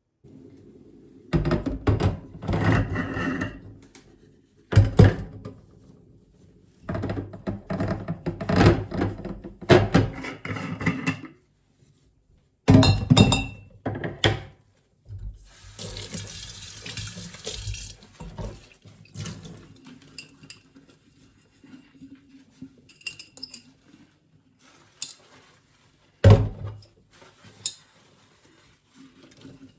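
Kitchen work: repeated knocks and clatters of dishes and utensils, with a water tap running for about two seconds midway.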